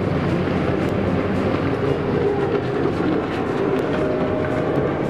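Racing jet skis (sit-down runabout personal watercraft) running at speed round the course, a steady engine drone mixed with the rush of water spray.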